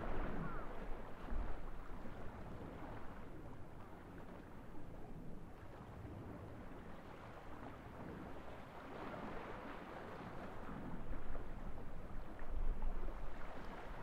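Waves breaking and washing up on a gravel beach. The surf swells just after the start and again about nine seconds in, with quieter stretches of wash in between.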